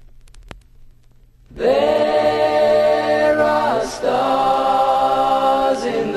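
A second and a half of faint hiss with a few clicks, then several voices enter singing in close harmony without instruments, holding long chords, with a short break about four seconds in.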